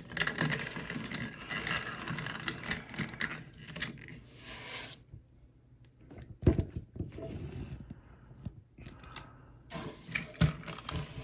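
Plastic Transformers action figure being handled: rapid small clicks and rattles of hard plastic parts, a pause, a single knock about six and a half seconds in, then more clicking near the end.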